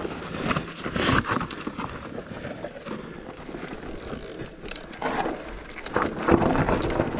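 Electric mountain bike rolling down a rocky dirt trail: the tyres crunch over loose stones and dirt, and the bike rattles and knocks over the rocks. The knocking is heaviest about a second in and again over the last couple of seconds.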